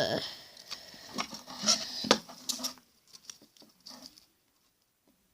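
Small handling noises of a VHS tape being spliced by hand: light clicks, taps and rustles of the film strip, Scotch tape and plastic cassette parts, busiest in the first three seconds and dying away after about four.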